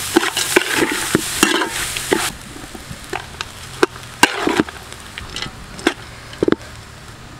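Metal ladle stirring and tossing cooked rice in a large metal pot, with hot oil and grated coconut sizzling at first. After about two seconds the sizzle drops away, leaving scattered sharp clicks and scrapes of the ladle against the pot.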